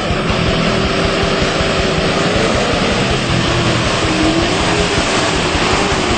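Four-wheel-drive ute's engine running under load through a river crossing, its pitch wavering up and down with the throttle, over a loud continuous wash of water thrown up by the wheels.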